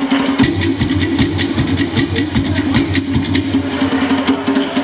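Fast Tahitian-style drumming: a dense run of rapid, even strikes over a steady low drum tone.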